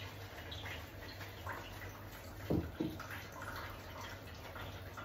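Wet washing sounds of shampoo being worked by hand into a puppy's soaked coat in a grooming bath, with dripping water over a steady low hum. Two soft thumps close together about halfway through are the loudest sounds.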